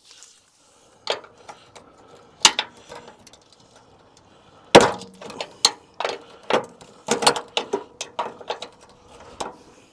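Irregular sharp clinks and knocks of a spanner and hand tools against metal as a 10 mm bolt on a car's front wing bracket is worked at, the loudest about five seconds in.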